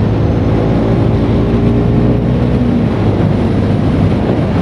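KTM RC 390's single-cylinder engine pulling hard under acceleration, with heavy wind rush on the microphone.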